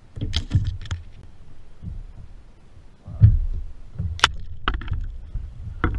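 Irregular low thumps and sharp clicks and knocks on a plastic fishing kayak as a landed puppy drum (redfish) in a rubber-mesh landing net is handled on the angler's lap, with one heavy thump about three seconds in.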